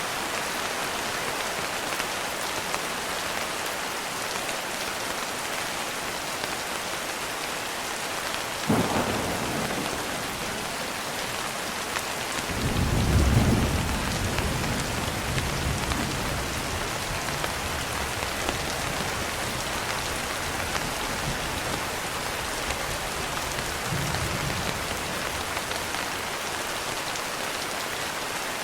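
Steady rain falling, with thunder: a sharp crack about nine seconds in, then a long low rumble that swells from about twelve seconds, peaks a second later and slowly fades, and a fainter rumble later on.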